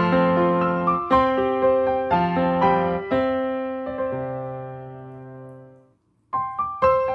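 Piano music with chords and a melody of struck, ringing notes; a phrase dies away after about four seconds into a brief silence, and the playing picks up again near the end.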